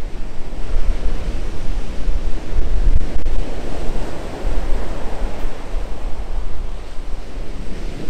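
Ocean surf breaking and washing up a beach, swelling louder about three seconds in, with wind rumbling on the microphone.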